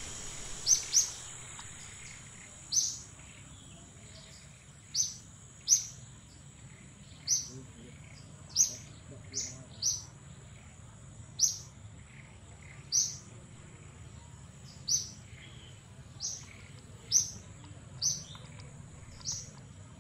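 A bird calling: short, sharp, high chirps repeated about every second or two, over a steady thin high-pitched whine.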